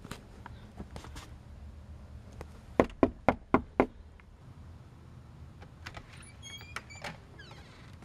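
Five quick knocks on a front door, the loudest sounds, evenly spaced about four a second. Later a few clicks and a short high squeak as the door is opened.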